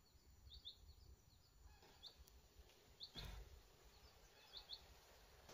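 Near silence, with faint, short bird chirps now and then and a soft bump about three seconds in.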